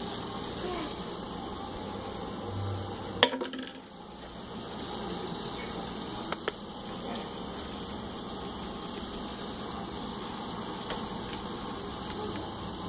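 A steady room hum, with one sharp clack about three seconds in and two quick clicks a few seconds later, from a clear plastic treat container being handled and set down on the floor.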